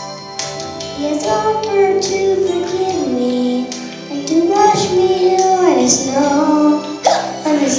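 Children singing a song with musical accompaniment, the voices holding and sliding between notes.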